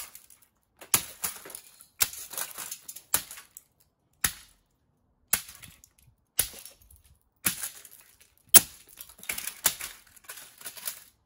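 A Zenith VCR being smashed with repeated hard blows, about one a second and quicker near the end, its plastic casing and circuit boards cracking and the broken pieces clattering after each strike.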